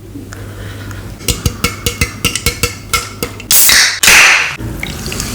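A cold Pepsi being opened: a run of sharp clicks, then two loud hisses of carbonation escaping about three and a half and four seconds in. A steady fizzing rush of the soda being poured starts near the end.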